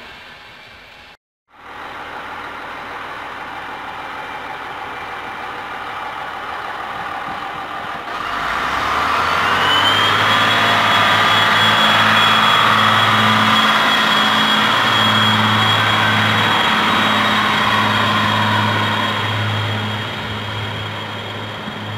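HŽ series 7121 diesel multiple unit running its diesel engines. It gets louder about eight seconds in, with a low pulsing drone and a high whine that rises and then holds steady.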